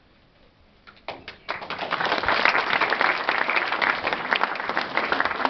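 Audience applauding: a few scattered claps about a second in, then steady applause from about a second and a half in.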